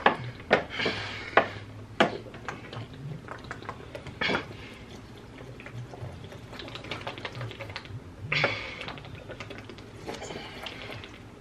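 Water being gulped from gallon plastic jugs, with the thin plastic clicking and crackling in irregular sharp clicks as the jugs are gripped and tipped, several in quick succession at the start.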